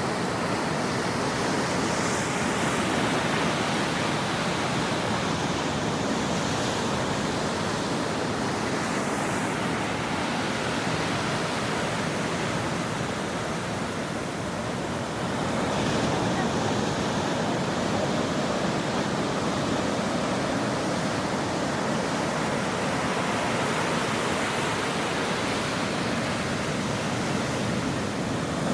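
Ocean waves washing on a shore: a steady rush of surf that eases off briefly about halfway through and swells up again as another wave comes in.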